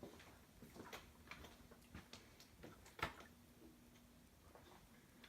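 Hunter West Indies ceiling fan running slowly on low: a faint motor hum with scattered light ticks and clicks, the loudest about three seconds in. The owner thinks the slow speed is a capacitor problem or the extra weight of the blades.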